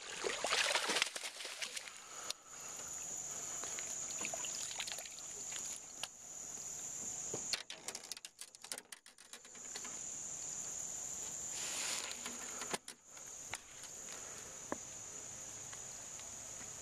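Insects keep up a steady, high-pitched chorus, which breaks off briefly about eight seconds in. Water splashes loudly about a second in, with a weaker rush of splashing later on.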